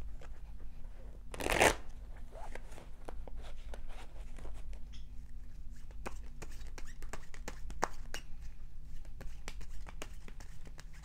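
A deck of tarot cards being shuffled by hand, a steady run of quick card clicks and rustles, with one brief louder rush of noise about a second and a half in.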